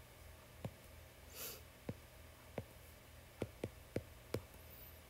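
Faint fingertip taps on an iPad touchscreen while a number is typed on the on-screen keyboard: about seven light ticks, several of them in quick succession near the end, with a soft breath about a second and a half in.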